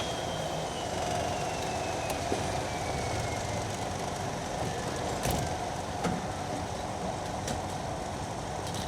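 De Havilland Canada Dash turboprop running down: a steady rumble under a thin high whine that falls slowly in pitch over the first few seconds. A few short clicks and knocks come in the second half.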